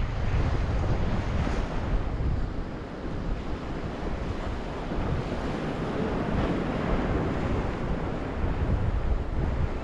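Surf washing onto the shore, with wind buffeting the microphone in a gusty low rumble.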